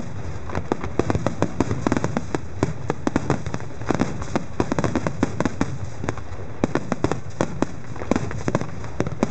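Fireworks display: a dense, unbroken barrage of shell bursts, several sharp bangs and cracks a second overlapping one another.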